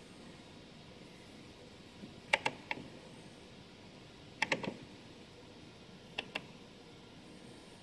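Rotary switch knobs of a resistance decade box being turned, clicking through their detent steps: a group of three clicks about two seconds in, three more about four and a half seconds in, and two near six seconds.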